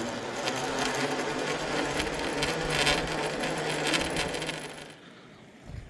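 Metallic jingling and clinking, dense and continuous, fading away about five seconds in.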